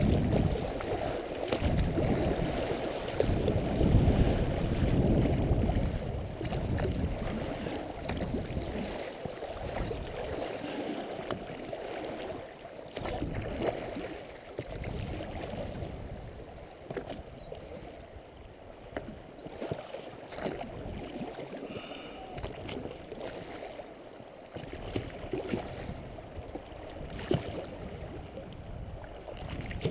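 River current rushing and lapping around the hull of an inflatable pontoon boat as it is rowed downstream, with a low rumble coming and going in gusts, strongest in the first few seconds.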